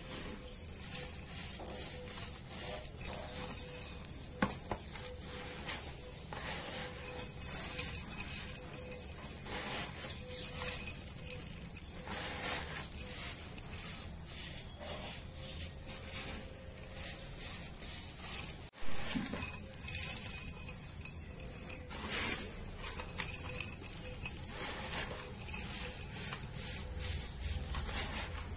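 Hands crushing and crumbling dry, dusty sand packed in a small round dish, giving an irregular gritty crunching and scraping with many small crackles.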